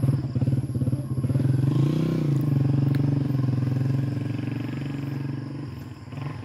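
Motorcycle engine running close by with a fast pulsing note, rising briefly in pitch about two seconds in, then fading away near the end.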